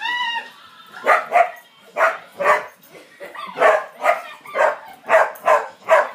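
Excited springer spaniels barking at play in a quick irregular string of about ten short sharp barks, opening with a brief high whine-like call.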